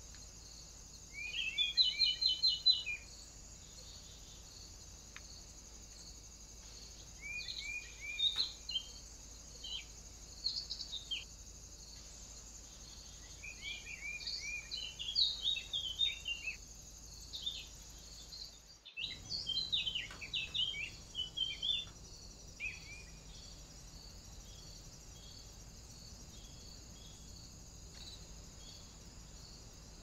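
A songbird sings four short phrases of quick, sharp notes a few seconds apart. A steady high insect drone runs underneath, with a momentary break about nineteen seconds in.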